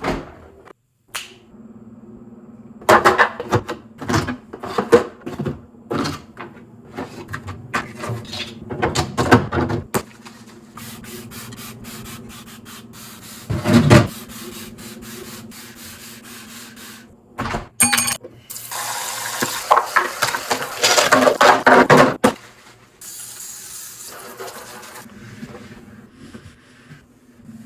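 Fridge cleaning: food containers, jars and shelves being handled and set down in a run of irregular knocks and clatters, with one heavy knock about halfway through and a short ringing clink a little after. This is followed by a few seconds of loud rushing hiss. A steady low hum sits underneath most of it.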